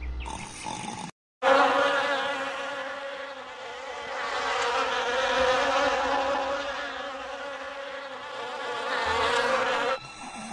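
A steady, even-pitched buzz, like a flying insect's, that swells and fades in loudness and cuts off abruptly near the end. It starts after a brief dropout of silence about a second in.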